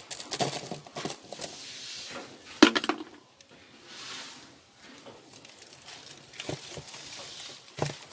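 Handling noises in a plastic basin: scattered clicks, taps and rustles, with a louder knock about two and a half seconds in and another near the end.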